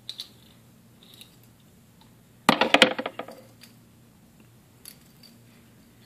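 Small metal items being handled: eyeglasses taken off and a metal necklace chain and pendant lifted, giving light clicks and clinks, with a quick cluster of sharp clinks about two and a half seconds in.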